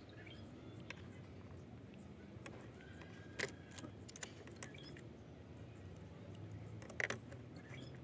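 Small metal and plastic parts of an electronic gas igniter clicking and tapping as they are handled and fitted together, a few sharp clicks around the middle and the loudest near the end, over a faint steady background.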